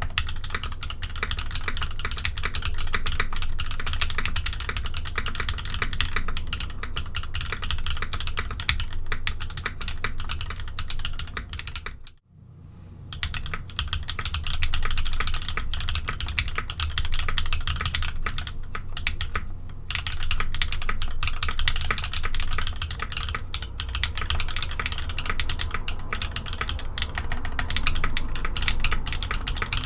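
Continuous fast typing on a mechanical keyboard fitted with ABS keycaps, a dense run of keystroke clacks. About twelve seconds in the typing stops for a moment, then starts again.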